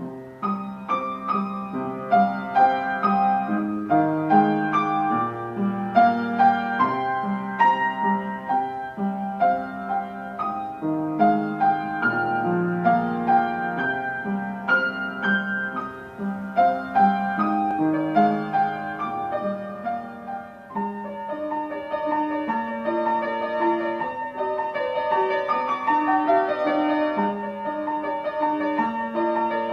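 Background piano music: gentle single notes and chords. About two-thirds of the way through, the playing changes to a steadier pattern of repeated higher notes.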